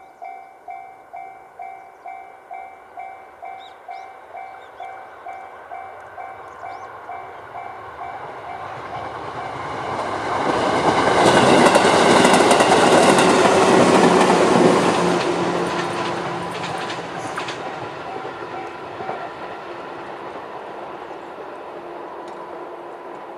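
Level-crossing warning bell, the JR standard electronic tone, dinging about twice a second as a JR 211-series electric train approaches and passes. The train's running noise swells to a peak about halfway, with clicks from the wheels over rail joints, then fades away.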